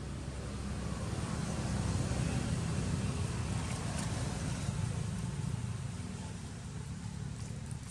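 A passing motor vehicle's low rumble, swelling over the first two seconds and slowly fading away.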